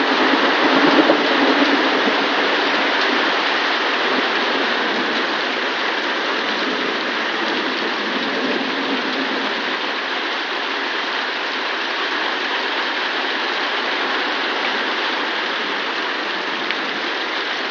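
Heavy rain falling steadily in a thunderstorm, with the tail of a thunder rumble dying away over the first few seconds.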